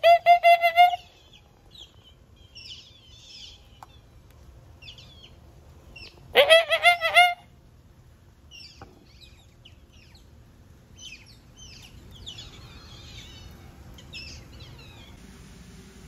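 Otters calling: a loud burst of rapid, shrill squeaking calls at the start and another about six seconds in, with fainter scattered chirps between.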